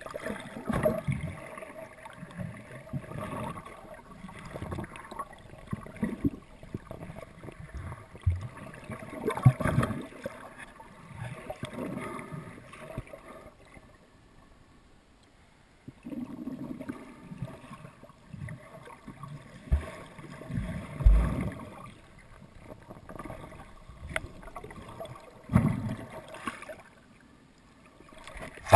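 Muffled water sloshing and gurgling heard underwater through a camera housing, with irregular low thumps and knocks. About halfway through it goes nearly quiet for a couple of seconds.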